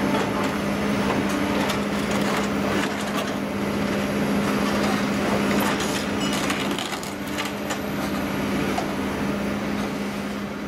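Hydraulic excavator with a demolition grapple tearing up the steel body of a scrapped Ichibata Electric Railway 3000-series railcar. The machine's engine runs steadily underneath frequent sharp cracks and crunches of sheet metal and framework giving way.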